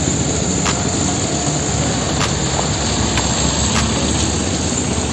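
Motor vehicle engine running steadily amid street traffic, a dense low rumble with a few faint clicks scattered through it.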